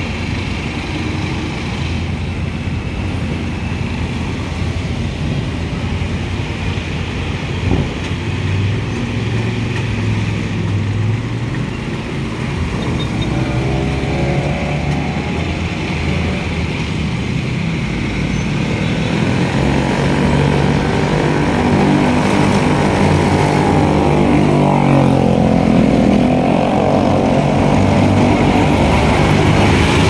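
Road traffic with vehicle engines running, growing louder in the second half as diesel passenger jeepneys come up close to the microphone and run near it. A single short knock sounds about eight seconds in.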